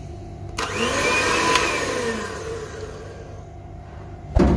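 Electric hand mixer whisking eggs and sugar in a stainless steel bowl: the motor whirs up about half a second in, then winds down and fades. A sharp knock comes near the end.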